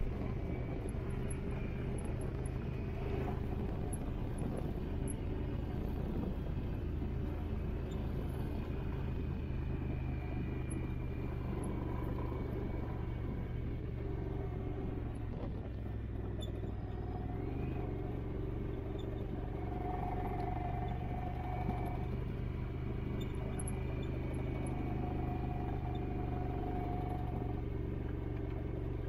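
Off-road vehicle engine running steadily at low, even speed while riding along. A faint higher whine comes and goes in the second half.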